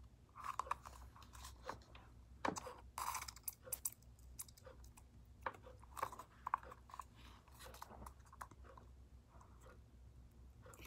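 Sticky homemade slime of shaving cream and gum being squished and kneaded by hand: faint, irregular wet squelches and small clicking pops.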